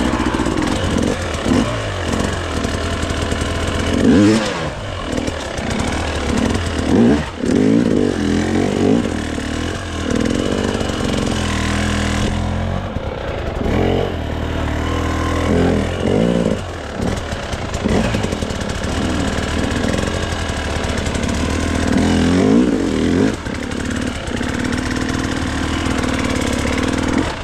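Gas Gas dirt bike engine revved again and again, its pitch rising and falling every second or two with brief drops, as the bike struggles for grip and barely moves on slick, rain-soaked ground.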